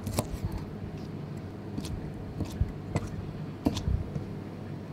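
Knife blade cutting soaked wood ear mushrooms on a plastic cutting board: about half a dozen sharp, irregular knocks as the blade meets the board, over a steady low hum.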